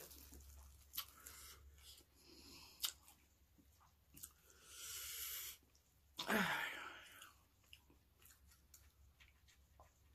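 Close-miked eating: chewing green papaya salad with small wet mouth clicks. There are two louder breathy sounds in the middle, a hiss a little before halfway and a sharper breath just after.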